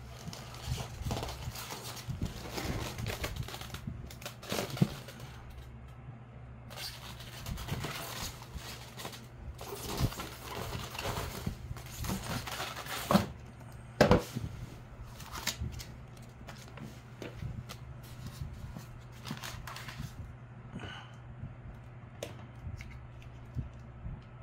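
Off-camera handling noise: irregular rustling and crackling with many small clicks and a few sharper knocks, the loudest about halfway through, over a steady low hum. It quietens for the last few seconds.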